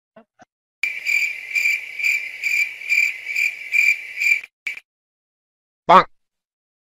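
Cricket chirping sound effect: a steady high-pitched chirp pulsing about twice a second for nearly four seconds, followed by one short blip near the end.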